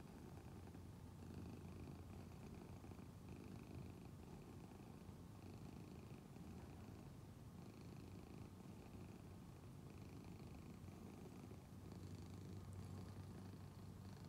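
Domestic orange-and-white cat purring faintly and steadily as it rests, the purr swelling and easing with its breaths about every two seconds.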